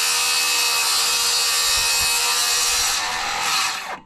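Circular saw cutting through an engineered-wood (LP SmartSide) fascia board at the roof edge with a steady whine, then finishing the cut and winding down near the end.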